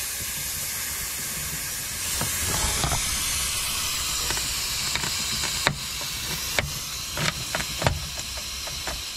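Jack being let down under the rear hub: a steady, loud hiss from its release valve, with a few light clicks and knocks in the second half as the suspension and new coil spring take the load.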